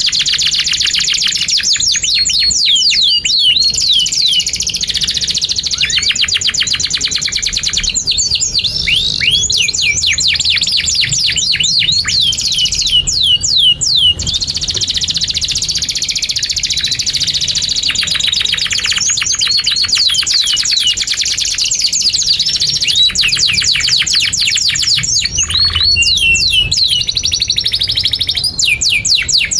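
Domestic canary singing a long, unbroken song, with rapid trills and fast runs of repeated downward-sweeping chirps that change speed from phrase to phrase.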